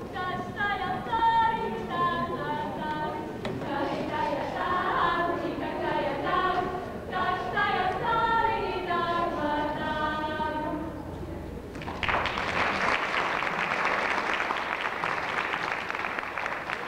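A group of singers singing an unaccompanied folk song in harmony, ending about 11 seconds in; about a second later an audience breaks into applause.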